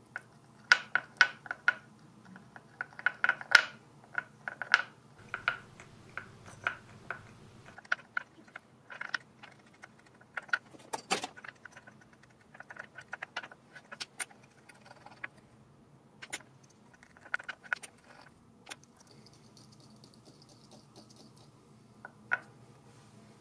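Miniature wire whisk clicking and ticking against a tiny ceramic bowl while egg yolk is whisked with melted butter. The quick, irregular clicks come thickly for the first few seconds, then thin out to scattered taps.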